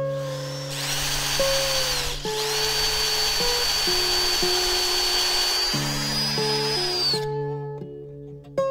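Power drill running a countersink bit into the edge of a plywood panel: a steady high motor whine with the grinding of the cut, stopping briefly about two seconds in, then running for about five seconds more before stopping.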